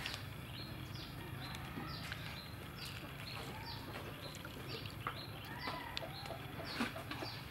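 A small bird calling over and over: short, high chirps that slide downward, about two a second, over a low steady background hum.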